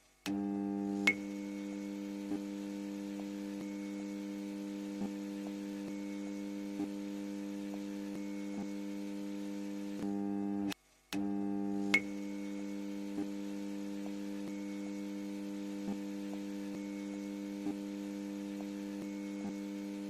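Electric buzz of a neon sign: a steady hum that cuts out briefly twice, near the start and about halfway through, and each time comes back with a sharp electric click as the sign flickers on. Faint crackling ticks come every two or three seconds.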